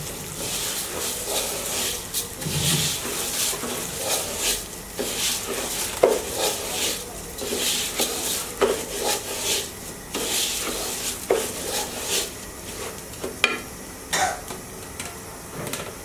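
Spoon scraping and stirring raw rice as it fries with browned onions in a pot: repeated scrapes and clicks of the spoon against the pot about once a second, over a light sizzle.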